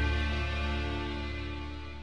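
Background music ending on a held chord that fades away.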